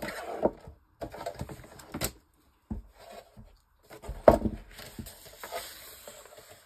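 Paper being handled and trimmed on a work table: short bouts of rustling and tapping, with a sharp snap a little over four seconds in followed by a longer rustle.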